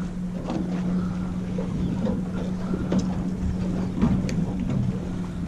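Boat engine running steadily, a constant low hum, with wind on the microphone.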